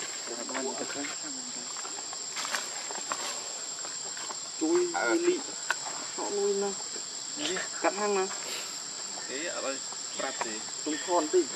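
Insects droning in a steady high pitch, with several short vocal sounds breaking in during the second half.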